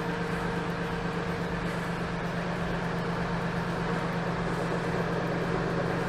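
Mahindra 1526 compact tractor's diesel engine running at a steady idle.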